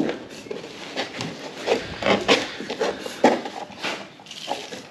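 Cardboard template handled, slid and rubbed against a plastic kayak deck: irregular scraping and rubbing with a few light taps.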